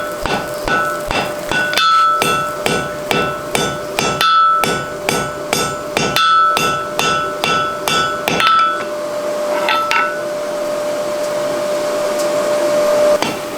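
Blacksmith's hammer striking a hot mild steel collar on a round bar at the anvil in a steady rhythm of about three blows a second, each blow ringing, as the collar is forge-welded. The hammering breaks off about nine seconds in, with a couple of lone blows, leaving a steady hum and hiss.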